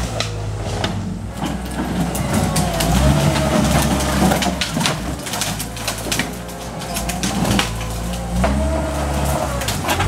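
Caterpillar skid steer's diesel engine running and rising and falling with load, with a wavering whine, as its bucket pushes through a pile of storm-felled tree branches. Wood cracks and snaps many times throughout.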